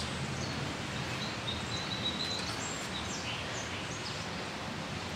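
Steady outdoor background noise with a few faint, short bird chirps.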